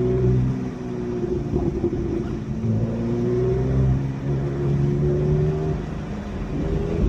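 Car engine running hard on a wet track, its pitch rising and then stepping to a new note several times as the throttle and gears change.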